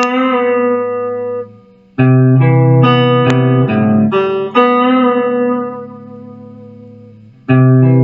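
A guitar plays a single-note riff, picked note by note. A note rings at the start, then a quick run of notes begins about two seconds in and ends on a long note left to ring and fade. The phrase starts again near the end.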